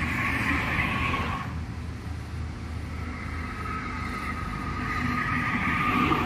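Cars passing on a concrete toll road, their tyres hissing with a faint whine: one fades away in the first second and a half, and another builds up and passes close near the end, over a steady low rumble of traffic.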